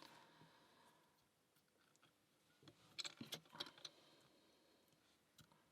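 A few small metallic clicks and taps about three seconds in, from picking tools and the brass padlock being handled, with near silence around them.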